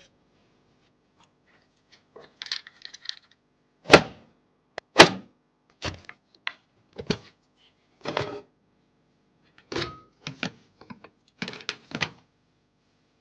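Computer parts being handled and fitted during a PC assembly: a run of sharp clicks and knocks, about one a second, with the two loudest knocks about four and five seconds in.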